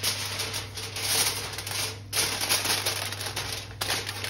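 Aluminium foil crinkling and rustling as it is spread over a pot and pressed down around the rim by hand, sealing the pot for dum cooking. It comes in bursts, with short breaks about two seconds in and near the end, over a steady low hum.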